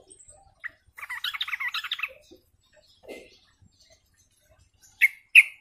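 Sooty-headed bulbul (trucukan) giving a burst of rapid chattering song lasting about a second, starting about a second in, then two short, sharp calls near the end.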